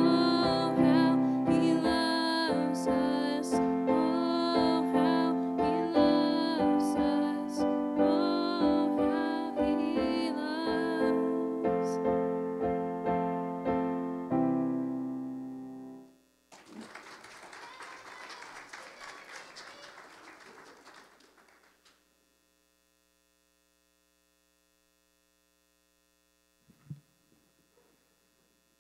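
Solo piano playing slow, sustained chords, the music ending about sixteen seconds in. Then about five seconds of light applause.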